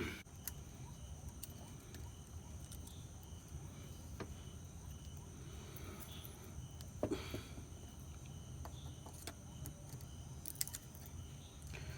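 Faint clicks and taps of small metal engine parts being handled and fitted by hand, a few times, over a steady low hum and the even chirping of insects.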